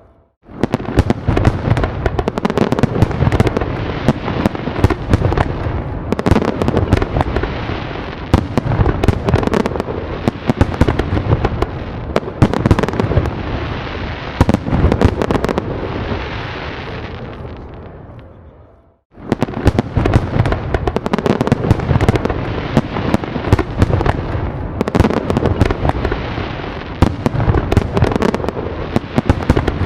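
Fireworks going off in a dense barrage: rapid sharp cracks and bangs over a continuous low rumble of booms. About 18 seconds in the barrage dies away to near silence, then starts again abruptly a second later.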